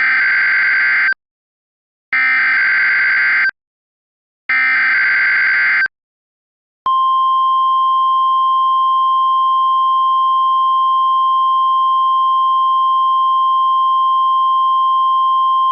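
Emergency Alert System tornado warning header. First come three short bursts of buzzy digital SAME data, each about a second and a half long with a second's gap between them. Then, about seven seconds in, a long steady single-pitched 1050 Hz NOAA Weather Radio warning alarm tone begins.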